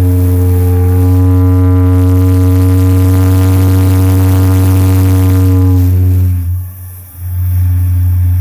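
Large, deep-toned steam whistle blowing a long, loud, steady blast. It cuts off about six and a half seconds in and is blown again under a second later.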